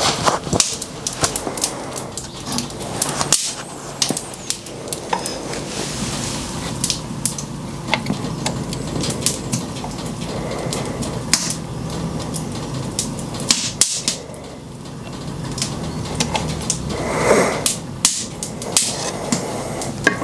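Irregular sharp clicks and light metallic taps over a steady low hum, from a steel locking-pliers-clamped aluminium grip-weight mould being worked under a bottom-pour lead melting pot while molten lead is poured. A short soft rushing sound comes about three-quarters of the way through.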